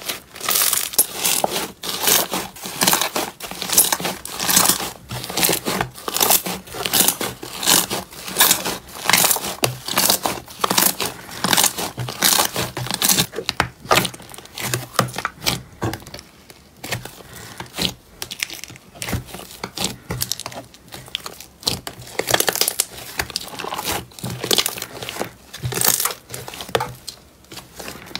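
Hands squeezing and kneading a tub of thick slime, making dense irregular wet crackles and pops; at the start, paper strips embedded in the slime crinkle as they are pulled.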